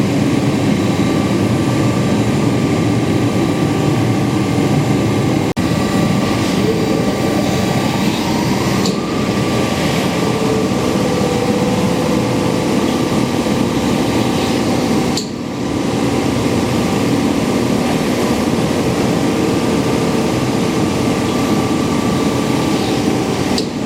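Amada Promecam HFBO CNC press brake running under power: a steady, loud machine drone with a constant hum, and a rising whine some seven seconds in.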